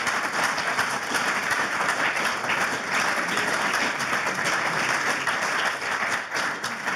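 Audience applauding: many hands clapping together in a steady round at the close of a talk.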